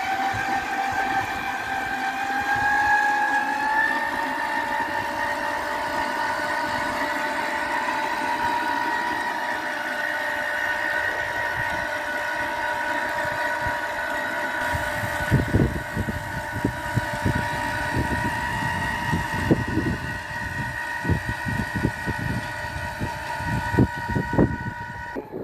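Electric power tiller's 60-volt BLDC motor and 15:1 gearbox whining steadily under load while tilling. The whine rises slightly in pitch over the first few seconds and then holds. From about halfway, irregular low thumps join it.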